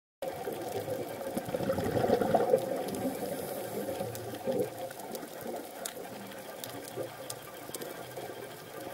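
Muffled underwater bubbling from a scuba diver's exhaled breath, loudest about two seconds in, over a faint steady hum, with scattered faint clicks later on.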